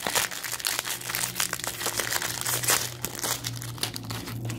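Thin clear plastic wrapper of a fortune cookie crinkling and tearing as it is pulled open by hand, in a dense run of sharp irregular crackles.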